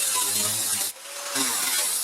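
A tool working on car-body sheet steel, cutting or grinding it in passes of one to two seconds with a brief break between them, while rusted panel sections are cut out.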